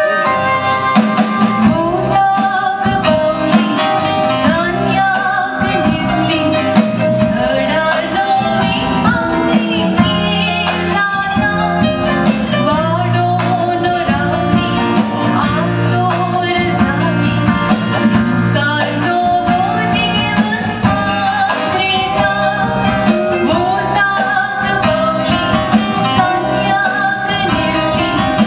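A woman sings a Konkani song with a live band of drum kit and electric guitars.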